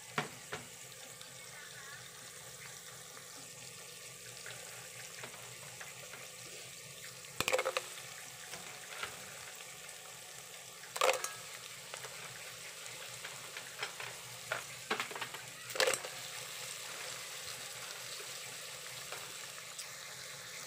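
Sautéed garlic, onion and tomato sizzling faintly in a metal pot while fresh green mussels in their shells are put in, the shells knocking sharply against the pot several times, loudest about 7, 11 and 16 seconds in.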